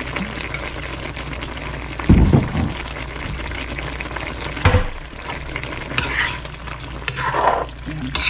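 A wok of chicken adobo sizzling as it simmers, with two dull thumps about two and five seconds in. Near the end a spatula stirs the chicken and vegetables, scraping against the pan.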